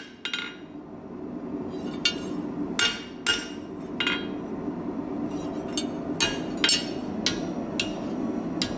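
Blacksmith's hammer striking a steel scroll on the face of a steel anvil: about ten irregularly spaced blows, each with a short metallic ring.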